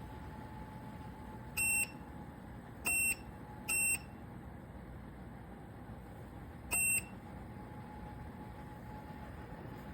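Four short, high electronic beeps from the QOWETU ceramic space heater's control beeper, irregularly spaced, over a faint steady hum.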